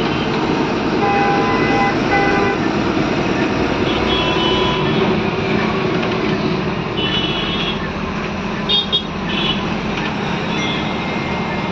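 Steady engine and road noise inside a city bus's cab as it drives through traffic, with short vehicle horns sounding several times.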